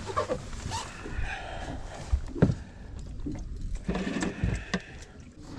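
Handling noises on a fibreglass boat deck: scattered knocks and scrapes as a caught black sea bass is carried to a cooler. One sharp knock comes about two and a half seconds in.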